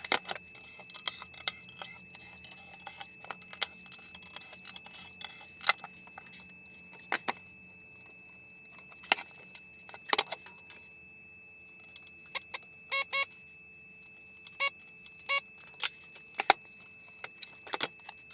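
Irregular metallic clicks, clacks and clatter as the stereo receiver's chassis, bottom cover, screws and tools are handled while the unit is opened up. The clacks come thickest in quick clusters in the second half, over a faint steady high tone.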